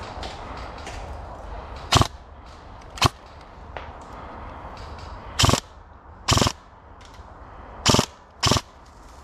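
Airsoft gun firing six sharp shots, irregularly spaced, about a second or so apart.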